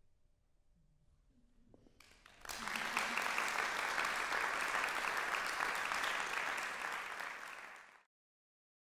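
Audience applauding: after about two seconds of near silence, applause breaks out and holds steady, then cuts off abruptly near the end.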